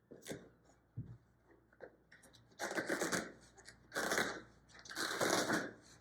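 Bicycle tire being inflated with a hand pump: a few light clicks, then three long strokes of rushing air, about a second each.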